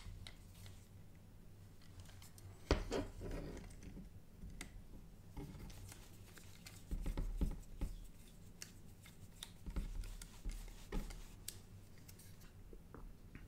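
Small screwdriver driving tiny machine screws into a 3D-printed plastic bracket on an LCD circuit board: faint scattered clicks, ticks and short scrapes, with the board knocked and handled now and then.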